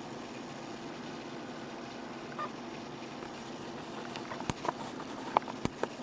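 Small Maltese dog stirring in a nightmare, its paws tapping against the surface it lies on: a handful of sharp taps and clicks in the second half, over a steady background hum.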